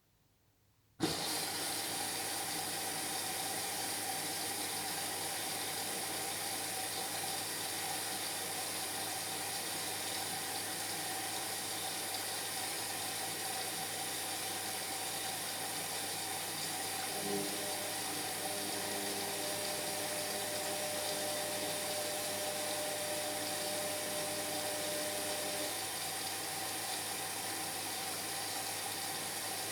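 Indesit MyTime washing machine taking in water: the inlet valve opens suddenly about a second in and water rushes steadily into the machine, with a faint hum joining for several seconds past the middle.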